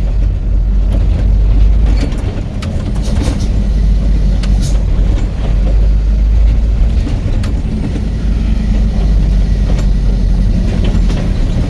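Vehicle driving on a road: a steady low engine and road rumble, with scattered clicks and knocks.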